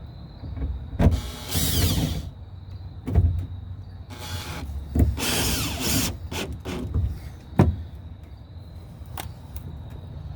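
Power drill running in two short bursts, about a second in and again near the middle, as screws are driven to mount a door speaker, with a few sharp knocks between them.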